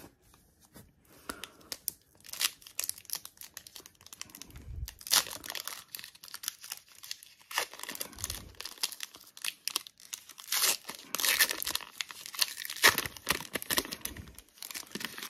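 Trading card pack wrapper being torn open and crinkled by hand: a long run of rips and crinkles, busiest in the second half.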